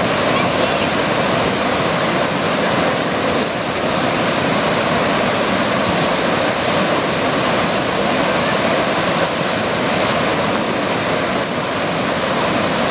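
Fast river water rushing over a standing wave and churning into whitewater, a loud, steady rush that does not change.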